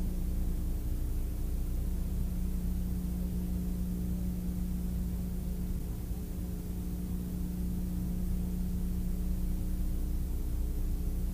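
Aerobatic airplane's piston engine and propeller droning steadily, heard from inside the cockpit with rushing air noise.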